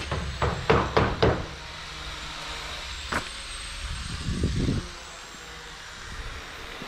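A quick run of about five sharp knocks, then a single knock about three seconds in and a short rustling scrape just before five seconds, over a steady low outdoor rumble.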